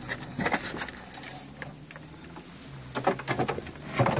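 Scattered light clicks and knocks of handling inside a car, clustered about half a second in and again near the end, over a faint low hum.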